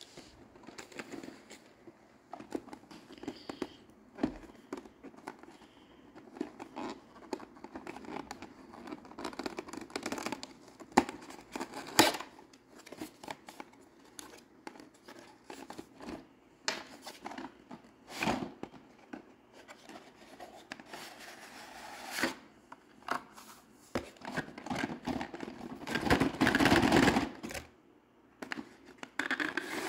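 Cardboard box and blister-carded Hot Wheels cars being handled and opened on a marble countertop: scattered clicks, scrapes and rustles of card and plastic, with a longer, louder rustle near the end.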